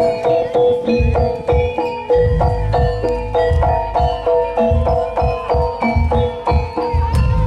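Jaranan music played on gamelan: struck metallophones ring a fast, repeating pattern of notes over a steady low drum beat.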